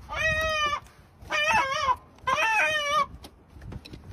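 A chicken squawking three times in quick succession, each call under a second long and dropping in pitch at its end.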